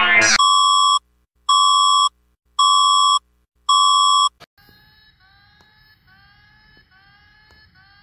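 Synthetic emergency-alert tone: four loud buzzy electronic beeps at about 1 kHz, each about half a second long with equal gaps. About four and a half seconds in, a much fainter alarm follows, a repeating series of short rising chirps.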